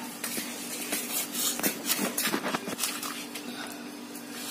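A cleaver cutting around the soft rim of a softshell turtle's shell, a quick run of short scraping cuts and light knocks against the wet surface beneath.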